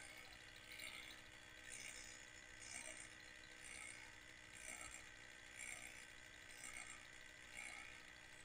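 Weeden 670 electric toy motor driving a Weeden hoisting drum through a coil-spring belt and gears, winding up the cord to lift a weight. A faint steady running hum, with a light mechanical click about once a second.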